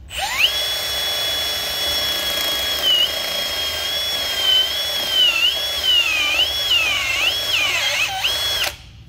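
Cordless drill turning a hollow core bit down into a cell post connection on an industrial lead-acid battery. The motor whine spins up at the start and holds steady, then sags in pitch several times as the bit bites and loads, and stops shortly before the end.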